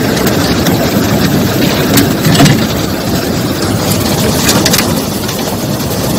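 A small boat's outboard motor running on fast, rough river water, steady and loud, with the rush of water. There are a few sharp knocks about two seconds in and again after four seconds.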